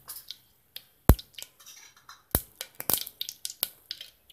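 Mustard and ajwain seeds spluttering in hot oil in a pressure cooker during tempering: irregular sharp pops, a handful of them loud, with fainter crackling between.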